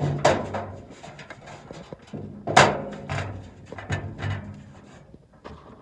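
A series of clunks and knocks from hard objects being handled and set down, with a low ringing under the heavier hits; the loudest knock comes about two and a half seconds in.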